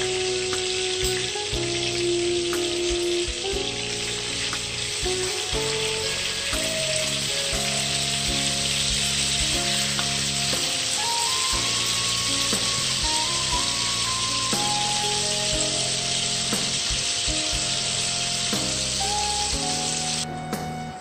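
Marinated pork belly pieces sizzling as they fry in hot oil in a frying pan, a steady dense crackle that cuts off abruptly near the end. A melody of background music plays underneath.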